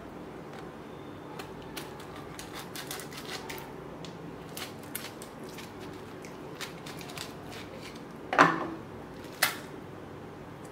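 Serrated kitchen knife cutting through a peeled, unripe jackfruit on a wooden chopping board: a run of small crunching clicks, then two louder knocks near the end.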